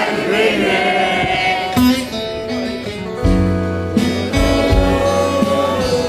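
Live acoustic rock band playing, led by acoustic guitars. A deep bass line comes in a little over three seconds in.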